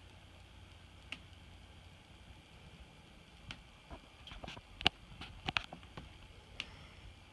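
Scattered light clicks and taps: a single one about a second in, then a quick irregular run of them in the middle, the loudest about five seconds in.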